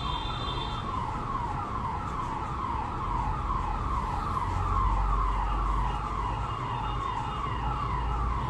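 Electronic vehicle siren sounding a fast, repeating falling yelp, about two or three sweeps a second, over a low rumble that grows stronger about three seconds in.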